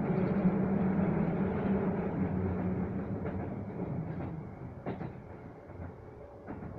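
Keisei Evening Liner train running, heard from inside the car: a steady rumble of wheels and motors with a hum that fades away in the second half, joined by a few sharp clicks from the rails.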